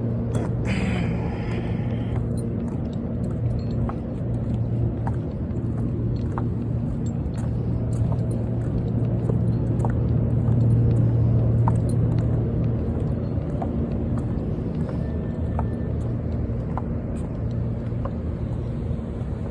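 Steady low engine hum, swelling slightly partway through, with faint scattered ticks.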